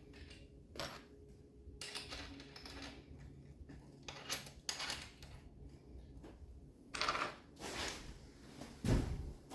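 Metal mounting hardware clinking and scraping as it is handled and fitted by hand, in irregular short clicks and rubs, with a heavier knock near the end.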